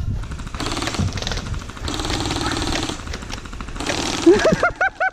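Electric gel blaster rifle firing on full auto in three bursts of about a second each, a fast even rattle of the motor-driven gearbox cycling. Near the end come several short shouted calls.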